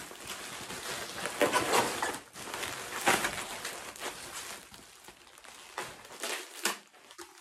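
Plastic bubble wrap crinkling and rustling as it is unwound and pulled off a package by hand, in irregular handfuls, dying down near the end.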